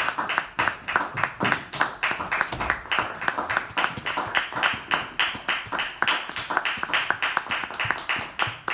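Audience applauding, with individual hand claps standing out close to the microphone.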